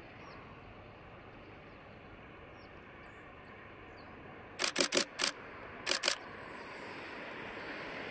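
Camera shutter firing in two quick bursts, four clicks then two, over faint outdoor hiss with a few small bird chirps; the distant rumble of a passing train grows slowly toward the end.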